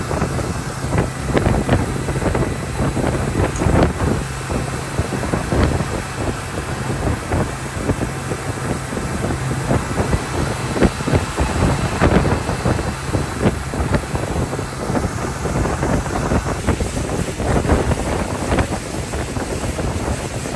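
A boat's outboard motor running under way, with the wake spraying and splashing behind the boat and wind buffeting the microphone.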